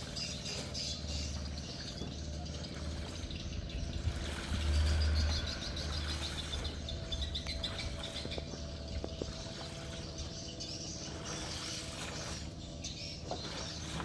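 Water splashing and dripping as a wet plastic tarp is hauled up out of a river against the side of a wooden boat, over a steady low hum and birds chirping. A low rumble swells and is loudest about five seconds in.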